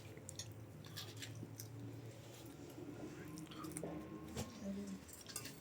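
Faint scattered clicks and soft handling noises over a low steady hum.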